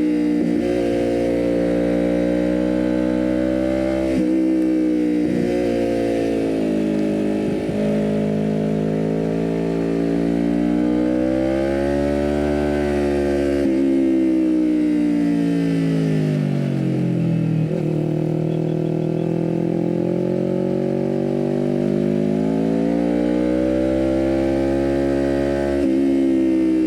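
Kawasaki Ninja 400 parallel-twin engine with a full cat-delete aftermarket exhaust, ridden under load through the gears. The revs climb and drop sharply at upshifts, near the start and again near the end. Past the middle they sink slowly as the bike slows, then climb again.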